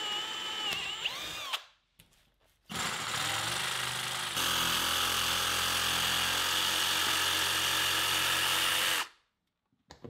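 A cordless drill whines briefly as it bores into plywood, winding down at the end. After a short break a jigsaw runs steadily, cutting the round 3.5-inch line-set hole through half-inch birch plywood; it grows louder about four seconds in and stops shortly before the end.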